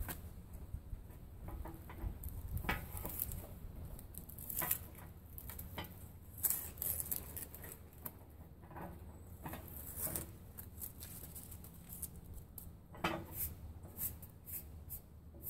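Scattered light clicks and knocks of pedal-tractor wheels with plastic hubs being handled and held against the tractor's body, at irregular moments, over a faint steady low hum.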